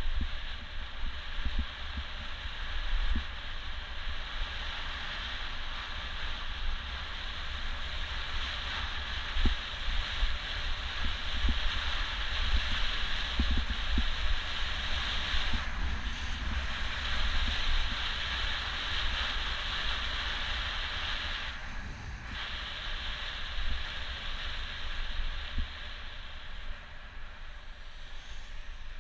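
Wind buffeting the microphone of a camera on a moving bicycle: an uneven, gusty rumble over a steady hiss of road and air noise, dipping briefly twice in the second half.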